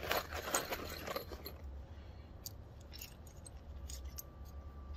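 Small metal hand tools clinking and rattling as a hand rummages in a tool belt pouch: a dense run of clatter in the first second and a half, then a few scattered clicks.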